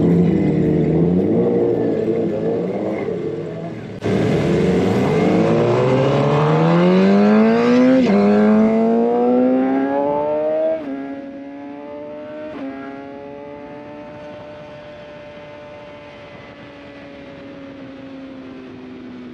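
2011 Suzuki GSX-R 750's inline-four engine pulling hard out of the pit lane, its revs climbing steeply from about four seconds in, with quick upshifts at about eight and eleven seconds and another shortly after. It then runs at a steadier, slowly falling pitch as the bike settles onto the straight.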